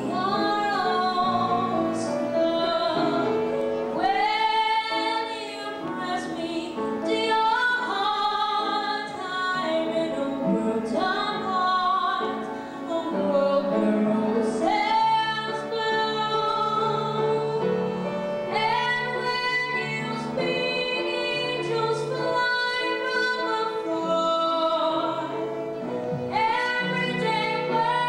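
A woman singing in a classical, operatic style, with long held notes and wide vibrato, accompanied by piano and violin.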